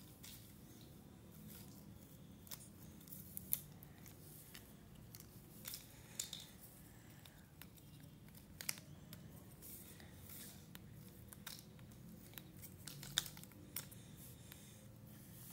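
Cardboard jigsaw puzzle pieces being picked up, slid and pressed together on a hard floor: faint, irregular clicks and taps, a few of them sharper.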